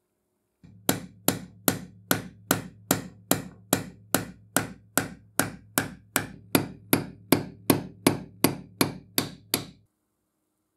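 A steel hammer taps steadily on a black steel disc fitted to the rebar cutter, about two dozen even blows at roughly two and a half a second. Each blow rings briefly, and the tapping stops abruptly near the end.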